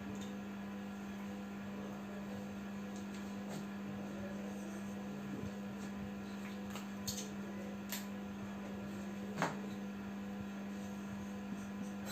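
Steady low electrical hum, with a few faint clicks in the second half.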